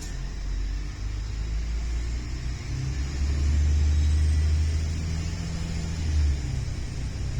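Low rumble of a moving passenger train heard from inside the carriage, growing louder about three seconds in.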